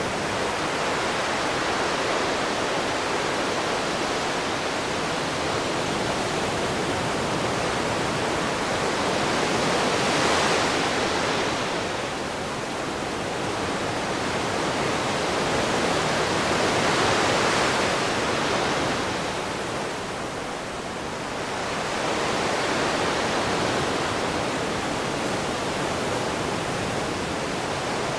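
Ocean waves washing onto a shore: a continuous rushing of surf that swells twice, about ten and seventeen seconds in, and eases between.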